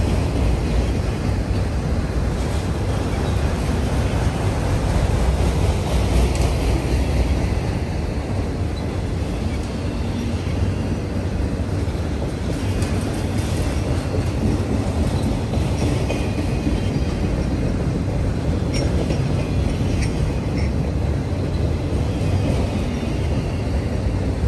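Autorack freight cars of a passing train rolling by at steady speed: a steady low rumble of steel wheels on the rails, with scattered sharp clicks and rattles.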